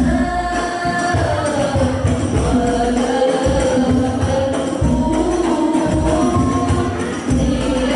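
Sholawat: group devotional singing in Arabic-style melody over hadrah frame drums and tambourine jingles, amplified through a PA sound system.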